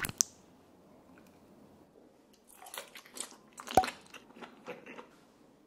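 A person eating with chopsticks, close to the microphone: a couple of sharp clicks at the start, then a run of short chewing and crunching bites from about halfway through, the loudest a sharp click near the end.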